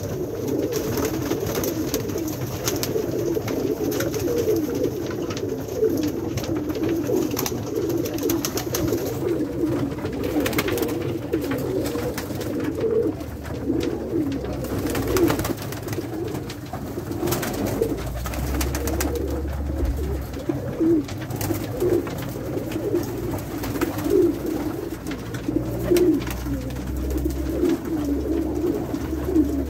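A flock of Pakistani high flyer pigeons cooing continuously, many birds' coos overlapping into one unbroken warble, with a few short sharp ticks scattered through.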